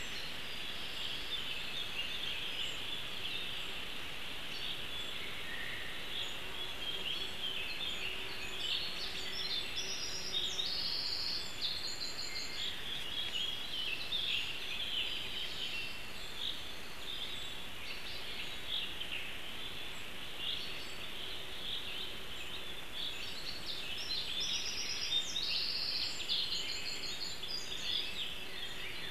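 Songbird chorus, many short overlapping chirps and trills, with one bird's clearer, higher phrase coming twice, about ten seconds in and again near the end.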